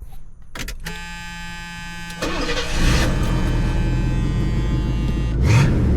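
Car engine being started: a steady starter whine for about a second, then the engine catches about two seconds in and settles into a steady run. There is a brief louder swell near the end.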